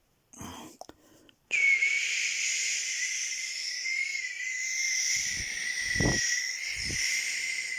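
A person whistling one long, breathy note held steady, starting about a second and a half in, with hiss above the tone. A few soft low thumps come partway through.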